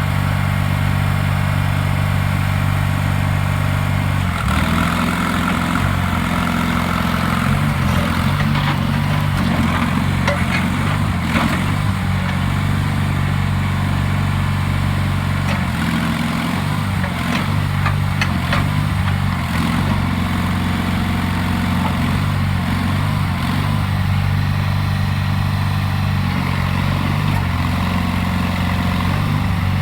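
Engine of a Terramite compact loader-backhoe running steadily. About four seconds in its note starts to waver and shift, and scattered clanks come through the middle stretch, as the machine is worked.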